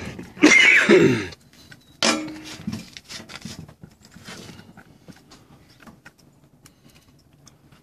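A magnet and luggage scale handled on a steel table: a sharp knock about two seconds in, then light scattered clicks and scrapes. A voice is heard in the first second or so.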